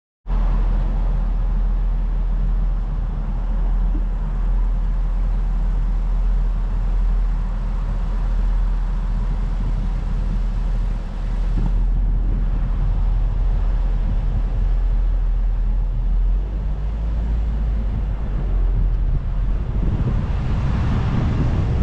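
A car driving on the road: a steady low rumble of tyres and engine. A hiss of wind on the microphone builds near the end.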